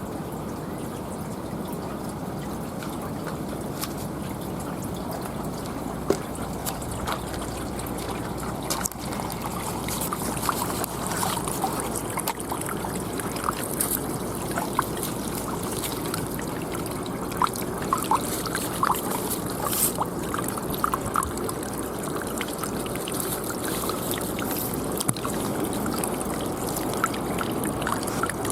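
Water trickling and splashing steadily, with scattered small drips and ticks in the middle stretch.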